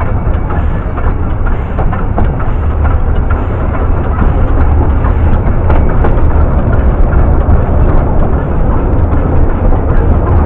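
Welsh Highland Railway narrow-gauge train running: a steady heavy rumble with faint rail clicks.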